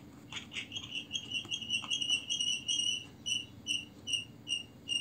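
High-pitched electronic chirping from a phone's loudspeaker during a call. A fast warbling trill breaks about three seconds in into separate short beeps, about two and a half a second.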